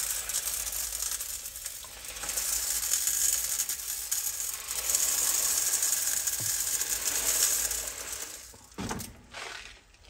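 Dishwasher salt pouring from its box through a plastic funnel into the dishwasher's salt reservoir: a steady hiss of running grains that dies away after about eight seconds, followed by a single knock.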